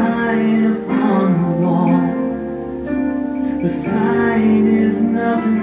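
A song being played: a singer's voice over instrumental backing, with sung lines such as "I hung a sign up on the wall".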